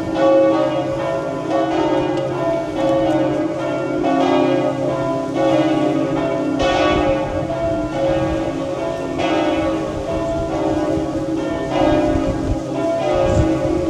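Church bells pealing: several bells struck in turn, a new stroke about every second, their ringing overlapping and hanging on between strokes.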